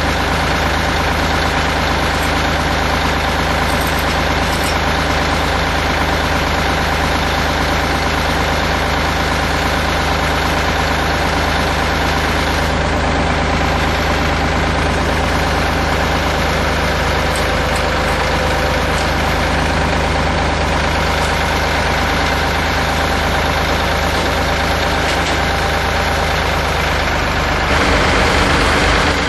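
Tractor engine idling steadily, getting a little louder near the end.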